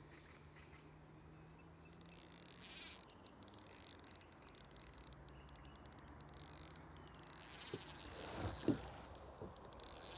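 Insects chirring: a high buzzing that starts about two seconds in and comes and goes in bursts, over a faint low hum. A couple of soft knocks near the end.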